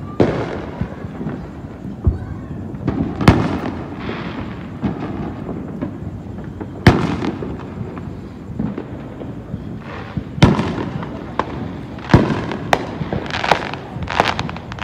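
Fireworks going off around the neighbourhood: single sharp bangs every few seconds over constant distant crackling and popping, with the bangs coming closer together in the last few seconds.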